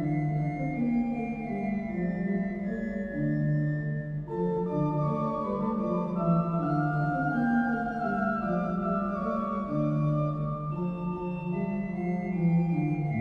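Organ music laid over the footage: slow, held chords that change about once a second.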